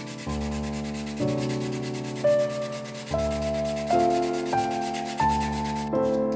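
Fast back-and-forth hand rubbing with an abrasive on a metal tool part, stopping near the end, under soft background music with held notes changing about once a second.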